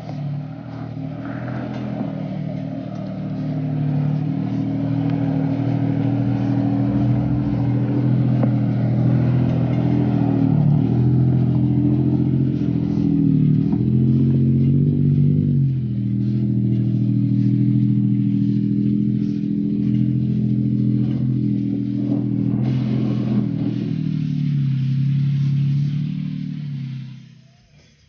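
Toyota Tacoma's engine pulling at low revs as the truck crawls up a steep dirt trail, the revs dipping and rising a few times around the middle. It cuts off suddenly near the end.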